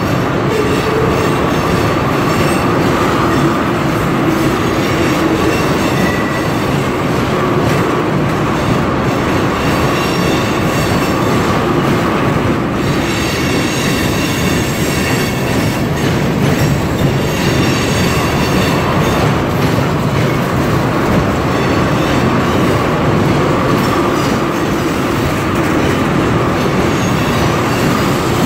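Freight train tank cars rolling past close by: a steady rumble and clatter of steel wheels over the rails, with a faint steady wheel squeal running through it.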